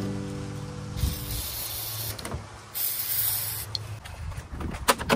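Aerosol spray lubricant hissing out through the can's straw into a door handle mechanism in two bursts: a longer one starting about a second in and a shorter, louder one just before the middle.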